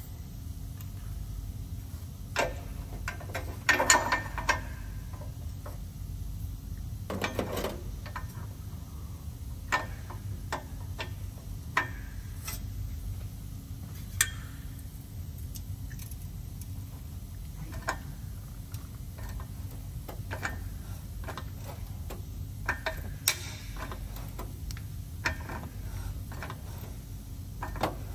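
Scattered metallic clicks and clinks of a long ratchet and 22 mm crow's foot spanner being fitted to and worked on an exhaust NOx sensor, with the loudest clatter about 4 and 7 seconds in, over a steady low hum.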